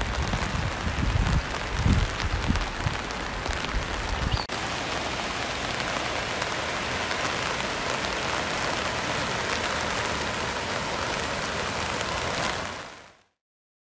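Steady hiss of heavy rain, with low rumbling bumps over the first four seconds; the sound fades out near the end.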